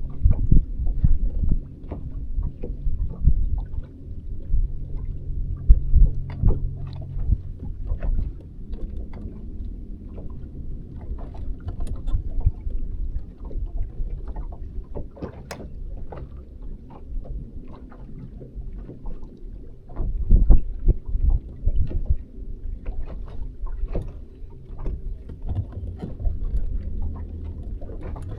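Bass boat on the water: a low rumble with many short, irregular knocks and slaps, louder about 6 and 20 seconds in.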